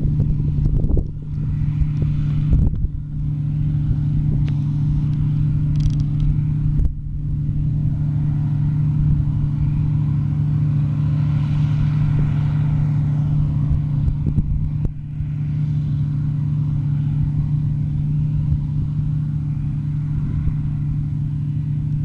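New Holland CX 8070 combine harvester running steadily while cutting barley: a constant engine-and-machinery hum. Wind buffets the microphone in the first few seconds.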